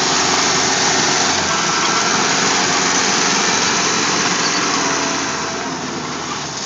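Loud, steady engine noise from the derby machines, easing off about five seconds in.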